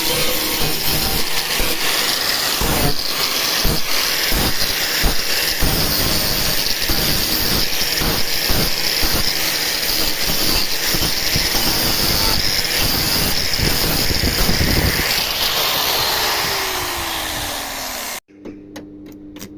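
Angle grinder working on car body sheet metal, a steady harsh hiss with rapid crackle, then the disc spinning down with a falling whine before the sound cuts off suddenly near the end.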